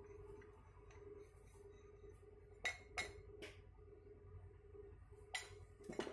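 A few light metal clinks and knocks as a home-made cylinder-liner puller, a threaded steel rod with a steel plate, is handled: about three in quick succession a little before the middle, and a couple more near the end, over a faint steady hum.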